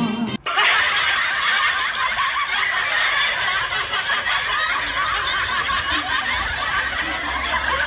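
Many people laughing and snickering at once, a steady dense laughter that starts abruptly about half a second in.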